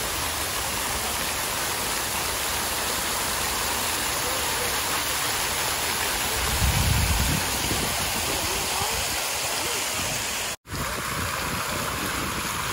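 Fountain jets splashing back into a pool: a steady rush of falling water. A brief low rumble comes about seven seconds in, and the sound cuts out for an instant near the end before the water resumes.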